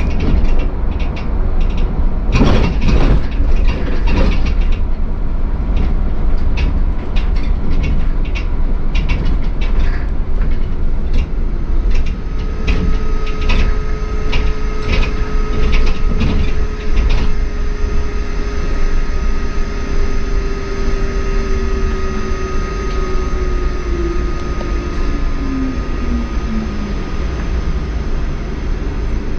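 Inside an ADL Enviro400 double-decker bus converted from diesel to hydrogen fuel-cell electric drive: low road rumble with knocks and rattles through the first half. About halfway in, a thin electric whine starts, then drops in pitch near the end as the bus slows almost to a stop.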